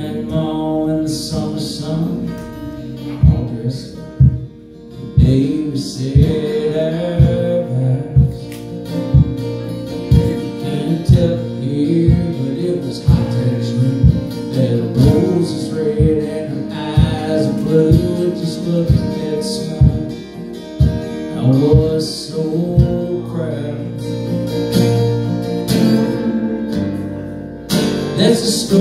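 Live country song on acoustic guitars, strummed in a steady rhythm, with a man singing.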